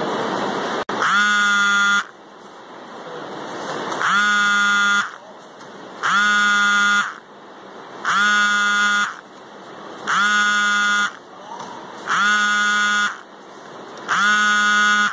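An electronic buzzer sounding in repeated blasts, each about a second long and coming about every two seconds, a loud, buzzy, horn-like tone. Before the first blast there is a second of hiss and a click.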